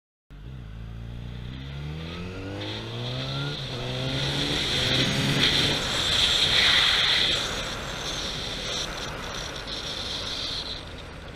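Yamaha FZ1 inline-four motorcycle engine accelerating away, its pitch rising over the first few seconds. Wind rush on the microphone then builds and drowns the engine, loudest around the middle.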